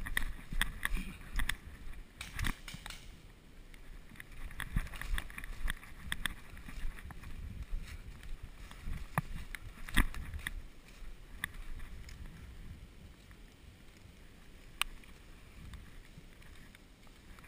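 Footsteps running and then walking over a forest floor of pine needles, twigs and ivy, with brush rustling and the bumps of a worn camera jostling. A quick run of crackling steps fills the first few seconds, then sparser steps and a few lone sharp clicks, one about ten seconds in.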